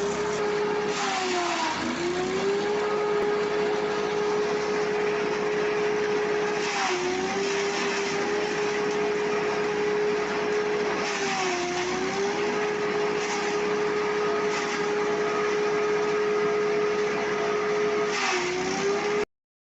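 Grass chopper machine running at speed with a steady whine. Its pitch dips briefly four times, each time with a burst of noise, as it slows under the load of material being fed in; the sound cuts off suddenly near the end.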